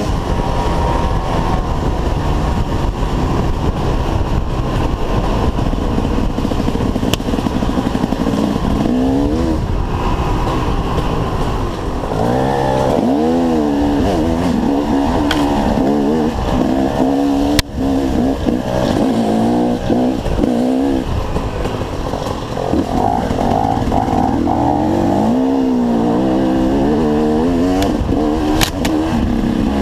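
Dirt bike engines revving up and down again and again, the pitch rising and falling as the throttle is worked, with more than one engine heard at times.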